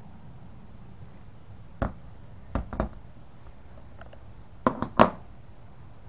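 Metal hard-drive cage, with the drive inside, knocking and clattering as it is handled and set down on a wooden tabletop. There is one knock about two seconds in, two near three seconds, and a quick run of three near five seconds, the last the loudest.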